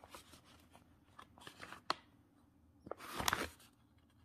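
Plastic-wrapped cat treat and its paper packaging crinkling and rustling as they are handled, with a sharp click about two seconds in and a louder rustle a little after three seconds.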